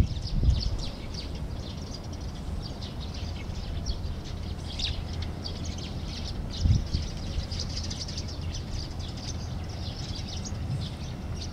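Small birds chirping in many quick, repeated calls over a low steady rumble. The rumble of a receding electric train dies away in the first second, and there is a brief low thump about two-thirds of the way through.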